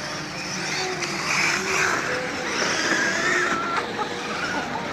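Several electric radio-controlled trucks driving on snow: a whine of electric motors rising and falling in pitch as they speed up and slow down, over the hiss of tyres churning through snow.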